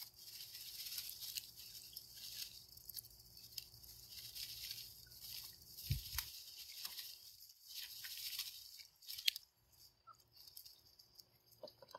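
Ducks rummaging with their bills through shredded plastic Easter grass in a treat basket: a dense, crinkling rustle that thins to scattered clicks about nine seconds in, with one low thump about halfway.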